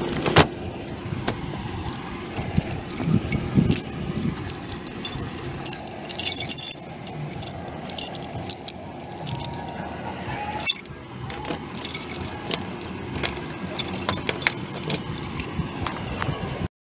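Handheld camera being moved about: rustling handling noise with clusters of small clicks and jingles, cutting off suddenly near the end.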